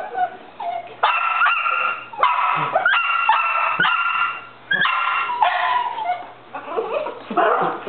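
Small dog barking in a run of high-pitched yaps, about ten in quick succession, with the barks held briefly and easing off near the end. The dog is barking at a toy spider hanging overhead.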